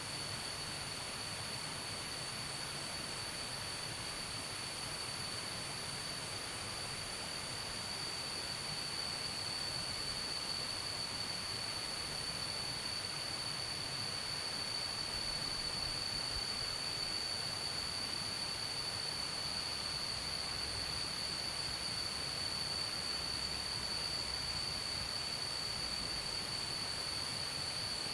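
Insects calling in one continuous high-pitched steady drone, with a fainter higher buzz above it, over an even hiss.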